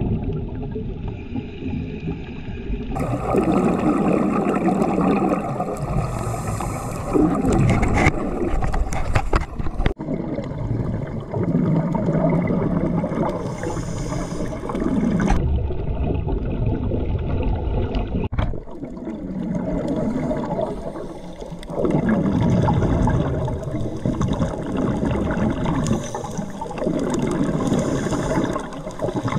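Underwater camera sound of a scuba diver breathing: repeated surges of exhaled bubbles every few seconds over a steady underwater rush, changing abruptly where the clips are cut together.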